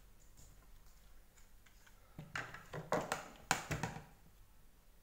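Hard plastic parts of a Deerma VC25 vacuum's floor head clicking and knocking together as they are handled and pulled apart: a quick run of sharp taps about two seconds in, over in under two seconds.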